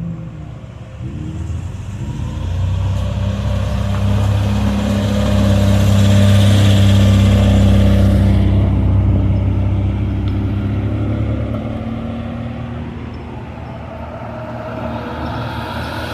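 Classic car engine running, with a couple of short revs at the start, then a steady low note that grows louder to a peak about seven seconds in and fades away again.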